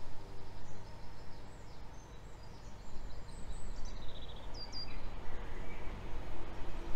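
Low rumble of an approaching Class 66 diesel freight locomotive, growing louder from about halfway, with small birds chirping over it.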